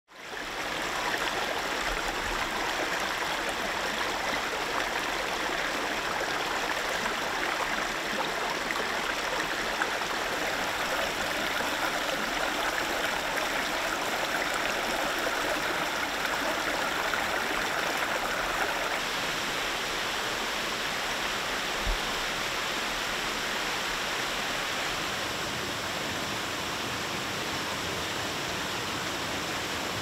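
Small rocky woodland stream running over stones: a steady rush of flowing water that fades in at the start. The rushing shifts slightly in tone a little past halfway.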